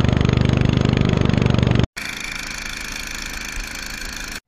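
Lawn mower engine running with a fast even firing pulse for about two seconds, then cut off abruptly. It is followed by a quieter snowblower engine running with a steady high whine as it throws snow.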